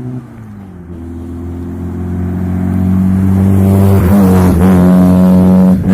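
Mitsubishi L300 engine running through a single-funnel 'corong' truck-style exhaust, revved: the pitch dips at first, climbs steadily for a few seconds, and holds loud at high revs before dropping off at the end.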